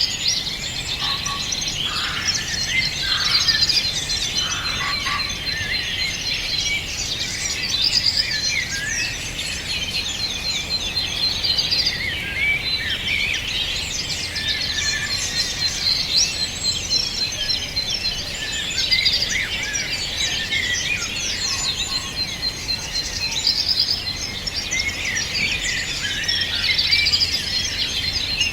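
Many songbirds singing and calling at once, a dense, continuous chorus of overlapping chirps, whistles and trills, with a thin, steady high-pitched note running underneath at times.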